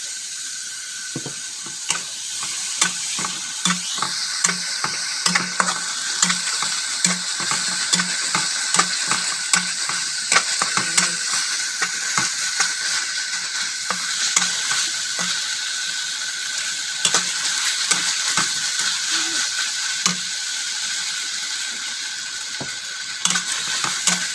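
Minced beef sizzling in a hot wok while a spatula stirs it, scraping and knocking against the pan about twice a second for the first half and more sparsely after.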